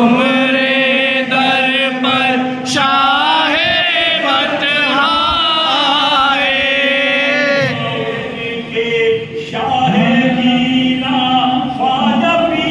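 Men chanting a devotional Sufi song together, the voices gliding through long drawn-out notes.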